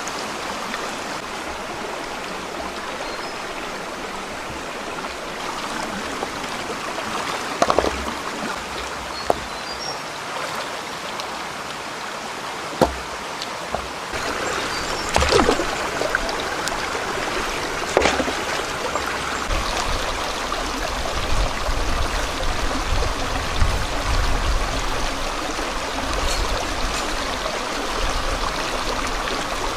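Forest stream water running steadily, with several short sharp knocks or splashes over it and a low rumble joining in during the second half.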